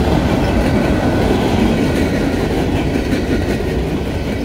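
Freight cars of a passing freight train, covered hoppers and then tank cars, rolling by close to the tracks: a steady rumble of steel wheels on the rails.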